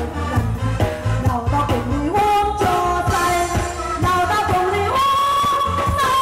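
A song: a voice singing a melody over a backing band with a steady bass and drum beat, holding a long note near the end.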